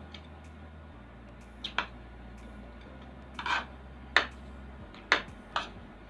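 Metal spoon clinking and scraping against a plate as rice is stirred and mixed, about six short irregular clinks, with a steady low hum underneath.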